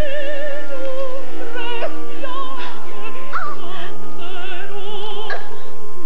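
Operatic singing: a voice holding long notes with a wide vibrato, over other music.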